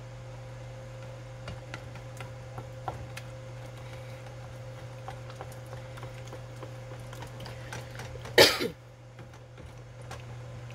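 A spoon stirring a thick cheese sauce in a metal saucepan, with faint scrapes and light clicks over a steady low hum. About eight seconds in there is a single loud, short cough.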